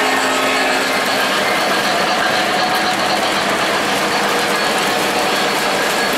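O-gauge model trains running on three-rail track: a steady clatter of metal wheels and motors.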